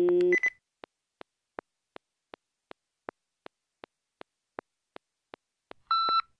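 A held sung note cuts off just after the start, followed by a short high electronic beep. Then come steady electronic ticks, about two and a half a second, from a small handheld electronic device, with a second, lower beep near the end.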